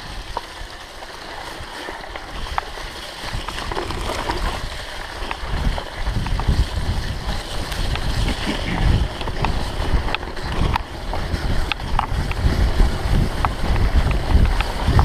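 Wind buffeting the microphone of a mountain bike ride, mixed with the tyres rolling over a dirt track. Scattered sharp clicks and rattles come from the bike over bumps. The rumble grows louder about five seconds in.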